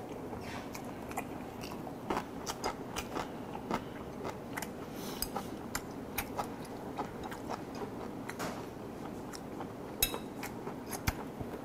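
A person chewing sashimi with the mouth closed, close to a clip-on microphone: soft wet chewing with many short mouth clicks and smacks.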